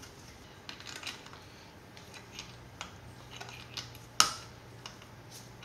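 Small clicks and taps of metal tools and engine parts being handled, with one sharp metallic clink about four seconds in that rings briefly.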